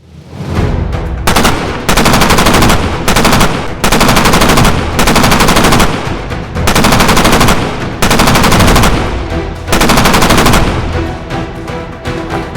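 Repeated bursts of rapid automatic gunfire, about eight bursts each a second or so long with short gaps, over background music that fades in at the start.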